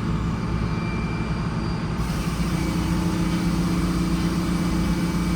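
Sawmill's engine running steadily, with a second steady hum joining in about two and a half seconds in.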